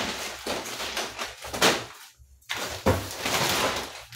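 Plastic shopping bag rustling as groceries are rummaged out of it, with a short pause about two seconds in.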